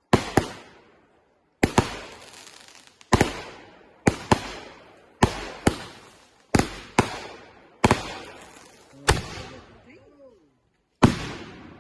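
Consumer aerial fireworks going off in quick succession: about a dozen sharp bangs roughly a second apart, some in close pairs, each trailing off as it echoes.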